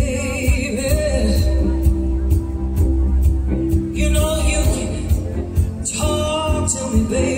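Live rock band amplified through a PA: electric guitars, bass and drums, with a woman singing lead in phrases near the start and again from about four seconds in.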